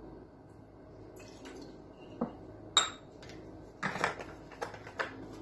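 Clinks and knocks of a metal jigger, glass bottle and glass mixing jar being handled while measuring grapefruit juice for a cocktail. The sounds are scattered and start about two seconds in, with one bright, ringing clink just under three seconds in and a quick cluster of knocks around four seconds.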